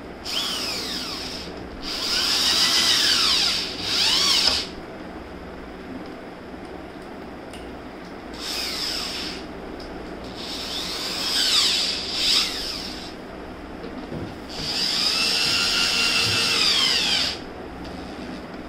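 Cordless drill-driver driving screws into a wardrobe panel, in about seven short trigger runs of one to two and a half seconds each, the motor's pitch rising and falling within each run.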